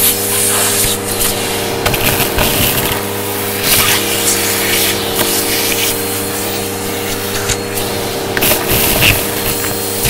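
Vacuum cleaner motor running with a steady hum while its hose wand sucks up wood shavings and small hard bits from carpet; the debris rushes and rattles up the tube in irregular surges.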